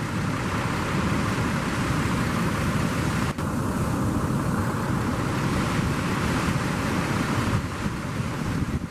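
Surf breaking and wind buffeting the microphone, a steady rushing noise with a brief dip about three and a half seconds in.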